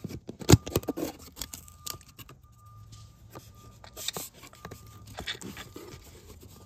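Cardboard door and panels of a homemade taped cardboard elevator being handled and opened by hand: a run of knocks, taps and scrapes, the sharpest knock about half a second in and a brief rustle around four seconds.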